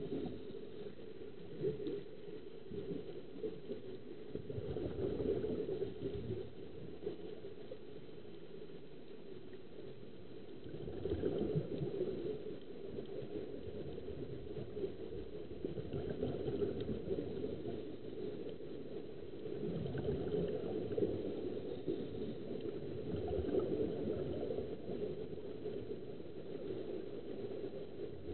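Muffled underwater noise: a steady low rumble with louder surges of bubbling from the divers' air-fed helmets.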